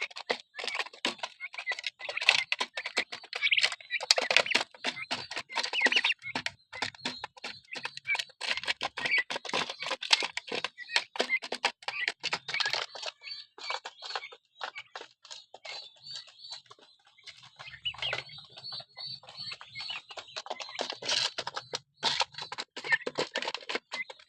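Six-week-old turkey poults pecking at feed: a rapid, irregular clicking of beaks, with high peeping calls in between.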